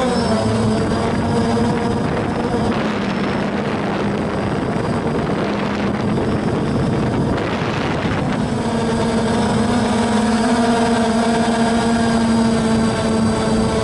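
DJI Phantom quadcopter's motors and propellers whining steadily as it climbs, heard from the camera it carries, with a rush of wind over the microphone twice; the whine grows stronger with more overtones about eight seconds in.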